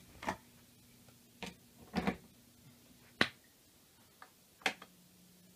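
Several scattered sharp clicks and taps, one at a time with gaps of about a second between them, over a faint steady hum.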